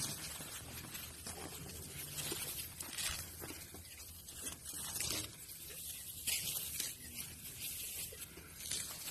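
Tall grass rustling and swishing in short, irregular bursts as bodies move through it.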